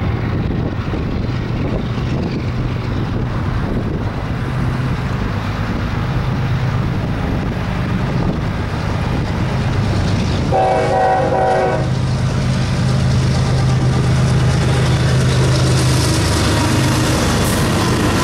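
BNSF diesel freight locomotives running as the train approaches, a steady low drone that grows louder. About ten seconds in the locomotive sounds one short blast of its air horn, and wheel and rail noise builds as the train reaches the camera.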